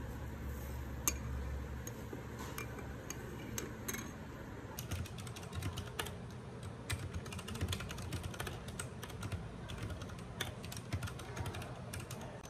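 A few separate light clicks, then after about five seconds a dense run of rapid small clicks: typing on a computer keyboard.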